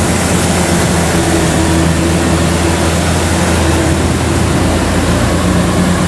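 Kubota DC-105X diesel rice combine harvester running steadily under load as it cuts and threshes rice: a continuous engine drone with the whirr of the threshing machinery, unbroken throughout.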